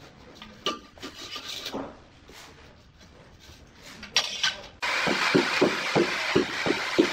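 Aluminium straightedge scraping and knocking lightly against a large wall tile, then a mallet tapping the straightedge and tile in a quick run of dull knocks, about three a second, bedding the tile into line. A steady loud hiss starts suddenly beneath the knocks about two-thirds in.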